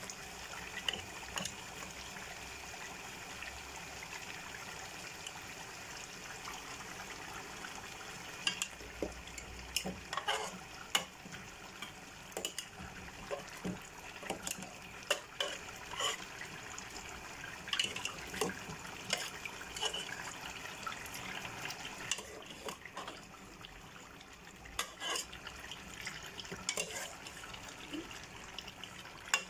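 A metal slotted ladle knocking and scraping against an aluminium pot as boiled chicken and turkey pieces are lifted, dripping, out of their broth and dropped into a pan of eggplant sauce. Short clinks come at irregular intervals over a steady hiss.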